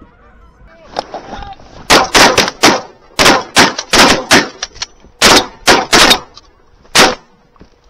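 Rapid volley of shotgun blasts from several hunters firing at geese overhead, close to twenty shots packed into about five seconds, starting about two seconds in.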